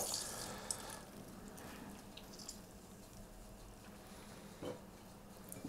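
Water dripping faintly into a glass bowl as salted, rinsed courgette sticks are squeezed by hand to press their water out. A few soft drips stand out, one a little before a second in and a couple near the end.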